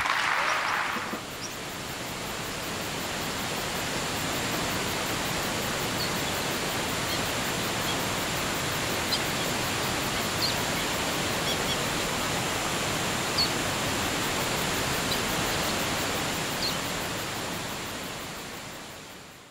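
Steady rushing of a waterfall, with a few faint, short bird chirps scattered through; it starts with a brief louder rush and fades out at the end.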